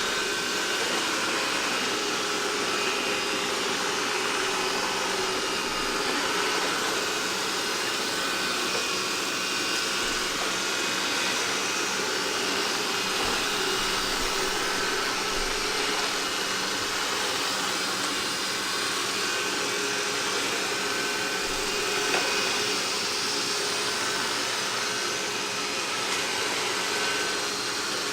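Roborock S4 Max robot vacuum running steadily as it cleans, a constant whir of its suction fan and brushes, with one brief click about two-thirds of the way through.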